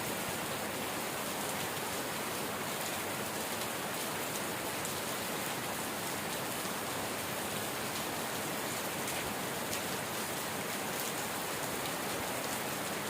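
Steady rainfall, an even hiss with faint scattered drop ticks.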